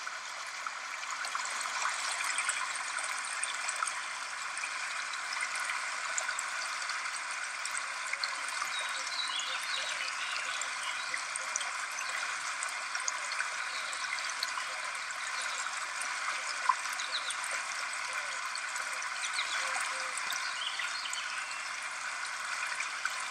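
Steady rush of a fast, milky glacial river pouring over rocks.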